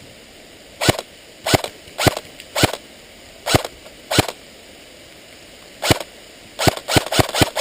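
Airsoft gun firing about a dozen sharp single shots, spaced half a second to a second apart, then a quicker string of five near the end.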